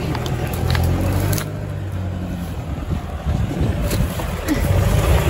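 Toyota Land Cruiser 120's 3.0-litre turbodiesel engine working hard under load as the 4x4 climbs a steep sandy slope, tyres spinning and flinging dirt. A few sharp clicks, and the engine gets louder near the end.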